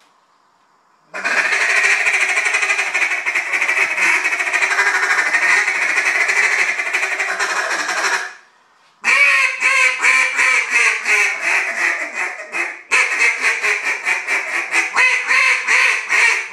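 JJ Lares duck call being blown. First comes a long run of rapid-fire notes lasting about seven seconds. After a brief break, a string of quacks falls in pitch, then another series of quacks follows at about four a second.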